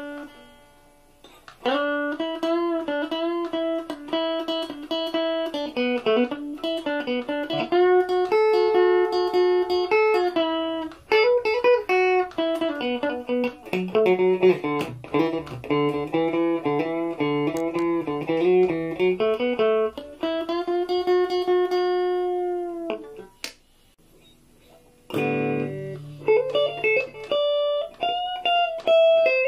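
Stratocaster-style electric guitar playing single-note melodic lines with bent notes. It breaks off for about two seconds near the end, then comes back with a low note followed by more melody.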